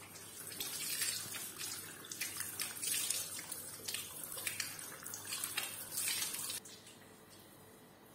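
Mineral spring water pouring from metal spouts and splashing into a stone trough, an uneven rushing splash. It cuts off abruptly about two-thirds of the way through.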